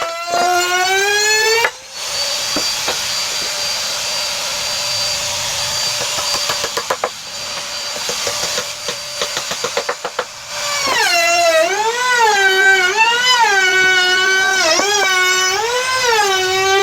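An electric power tool running steadily on wood for about eight seconds, with a string of clicks near the end. Before and after it, a pitched tone slides up and down.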